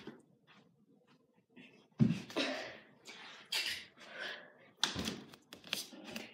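Dancers' feet and bodies thumping on a floor while tumbling, two heavy landings about two and five seconds in, the first the loudest, with clothing rustle and breathing between them.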